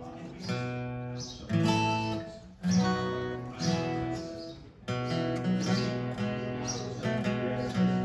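Steel-string acoustic guitar played solo and fingerpicked, chords plucked about every second and left to ring, with short breaks between phrases.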